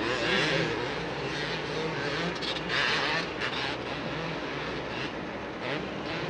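Two-stroke motocross bike engines revving hard and backing off, the pitch climbing and dropping with the throttle, with louder surges just after the start and about three seconds in.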